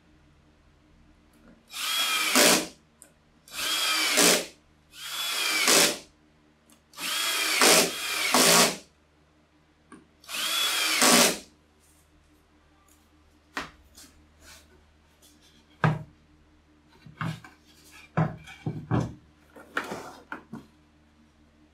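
A cordless drill-driver runs in five short bursts, driving screws through small wooden cleats into a plywood disc. After the drilling stops, a series of light knocks and taps follows.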